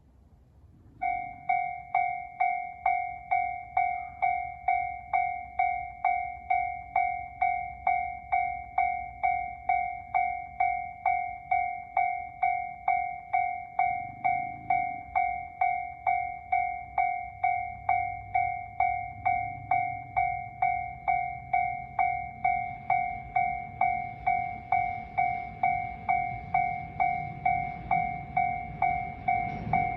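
Warning bell of a Japanese class-3 level crossing on the JR Ome Line, starting about a second in and ringing steadily, a little under two strikes a second. A low rumble of an approaching train builds in the last third.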